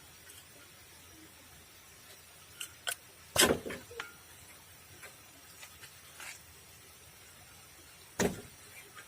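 Scattered clicks and knocks of hand work on the engine as the spark plug leads are pulled off and the plugs removed, with two louder thumps about three and a half and eight seconds in.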